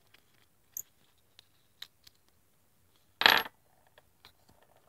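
A UST keychain whistle's small metal screw-top container being unscrewed, with a few faint clicks, then one short, bright metallic clink about three seconds in as the container comes apart.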